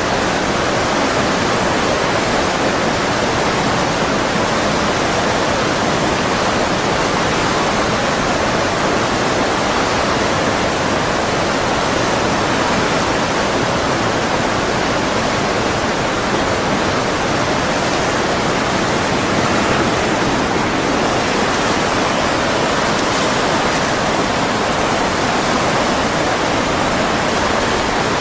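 Steady, loud rushing noise that holds an even level throughout, with no distinct events.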